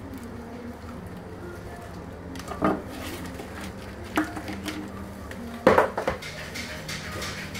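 Knocks and clatter of a chef's knife and cooked lobster halves handled on a wooden cutting board: a few separate knocks, the loudest a quick cluster near the end. A steady low hum runs underneath.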